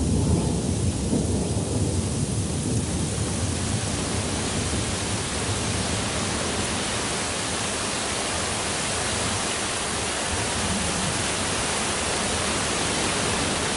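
Thunderstorm: low thunder rumbling for the first few seconds, giving way to a steady hiss of torrential rain.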